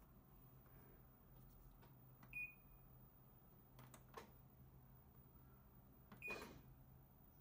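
Panasonic NA-F90A4 washing machine's control panel beeping as its buttons are pressed: a short high beep about two and a half seconds in, faint clicks a little later, and a click of the Start button with another beep near the end.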